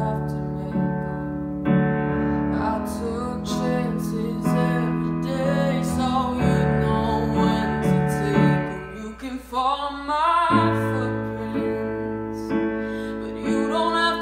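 A woman singing a slow ballad, accompanying herself on a Nord electric keyboard with a piano sound, playing sustained chords. About two-thirds of the way through, the low chords drop out briefly under a rising sung line, then come back in.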